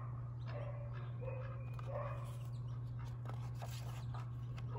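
Several short, faint animal calls over a steady low hum.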